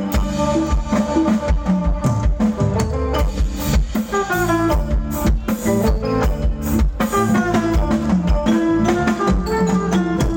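Live band music: a drum kit keeping a steady beat under melodic instrument lines.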